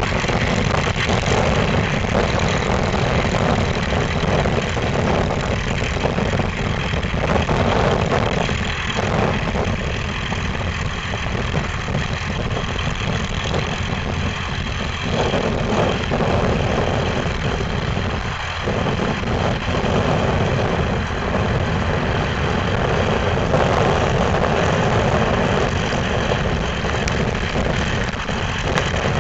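Old farm tractor engine running steadily under load as it pulls a plow through the field.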